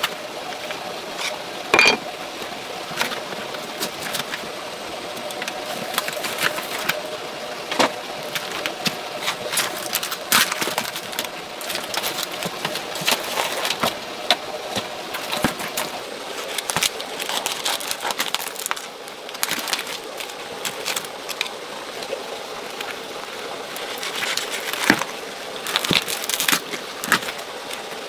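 Irregular clicks, knocks and scrapes of hands working with materials, over a steady background hiss.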